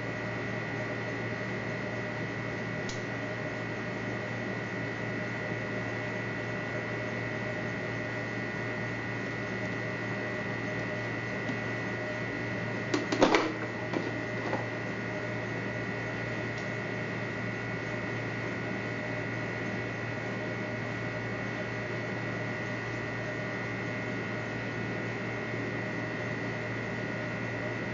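Steady electrical hum with a few fixed high tones from a switched-on portable garment steamer heating its water, not yet at the boil. A brief sharp sound about thirteen seconds in.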